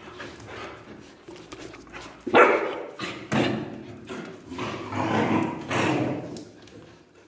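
Dog barking: a run of four or five loud barks beginning about two seconds in, the first the loudest.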